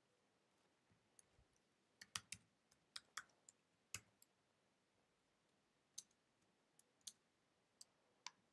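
Faint, irregular clicks of computer keys and mouse buttons, about a dozen sharp ticks bunched together around two to four seconds in and then sparser, over near-silent room tone.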